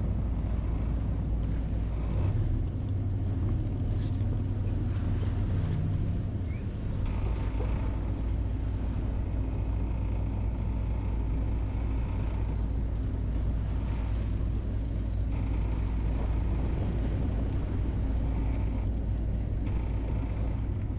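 Whale-watching boat's engine running steadily, a low rumble that does not change.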